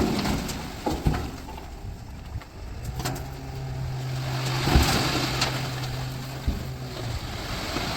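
Heavy diesel engine of earthmoving machinery running at a steady pitch, with a few sharp knocks and a rushing noise that swells about halfway through, as a dumper is being loaded.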